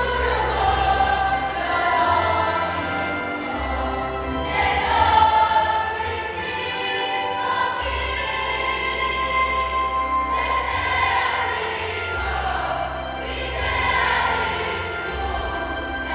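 Church choir singing a Christmas carol medley over instrumental accompaniment, with long held notes above low bass notes that change every few seconds.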